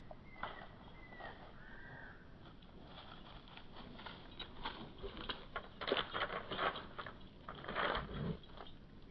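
Dry leaf litter and twigs crackling and rustling as a dog leaps at a tree trunk and lands, loudest about six and eight seconds in. A few faint bird chirps in the first two seconds.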